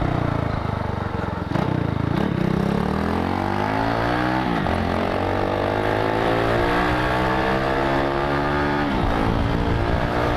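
Motorcycle with an aftermarket USA Racing exhaust accelerating through the gears: the engine note dips about one and a half seconds in, then climbs steadily, falling sharply at upshifts about four and a half and nine seconds in before rising again.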